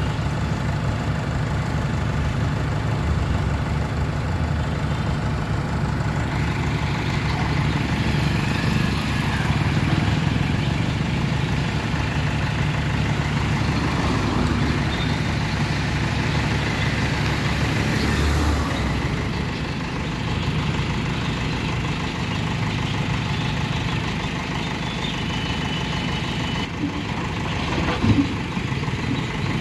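Heavy diesel engine of earth-moving or farm machinery running steadily, with a brief sharp knock near the end.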